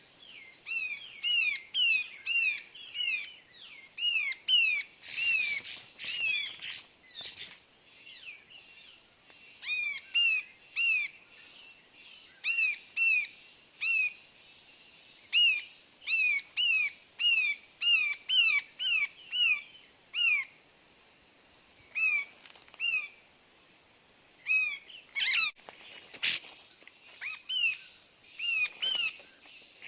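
Small birds calling: a rapid run of short, high chirps, each sliding down in pitch, in bursts of several notes with brief pauses between. There is a single sharp click about 26 seconds in.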